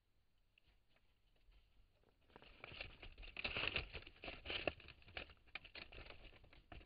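Red fox cubs scrabbling and rustling over dry leaves and debris close to the microphone: a quick, irregular run of scratches, patters and crinkles that starts about two seconds in.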